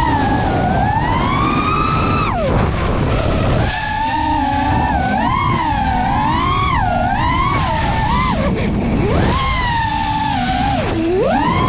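FPV quadcopter's brushless motors whining, the pitch swooping up and down with the throttle and dropping sharply a few times, over heavy wind and prop-wash rumble.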